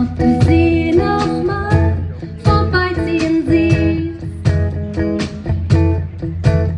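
A small band playing a song: strummed and plucked strings over bass guitar and a drum kit keeping a steady beat, with a voice singing the melody.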